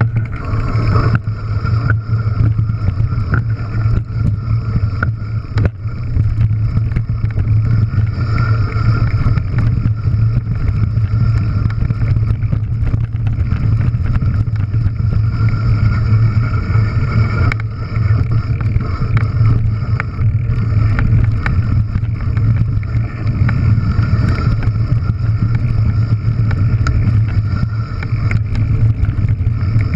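Mountain bike descending a rough gravel trail at speed, heard from a handlebar-mounted camera: wind buffeting the microphone in a steady low rumble, with tyres rolling over gravel and frequent small clicks and rattles from the bike.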